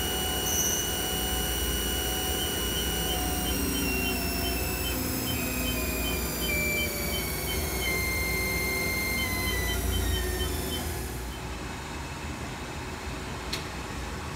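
2004 Haas TM-1 CNC vertical mill spindle running up at its top speed of 4,000 RPM, a whine of several steady tones that step down in pitch as it goes. The whine drops away about eleven seconds in, leaving a lower hum, with a single click near the end.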